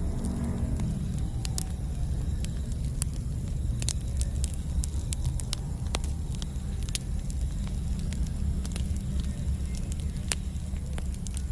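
Campfire burning: wood crackling, with scattered sharp pops over a steady low rumble.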